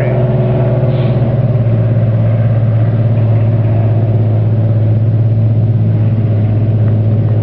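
Engine of a self-propelled harvester running steadily under load as it works, a loud even low drone with no change in pitch.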